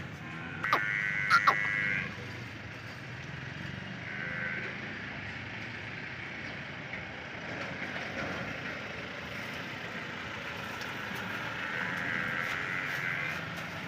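Farm animals calling: one loud, high bleating call about a second in, then fainter, longer calls around four seconds in and near the end, over a steady low hum.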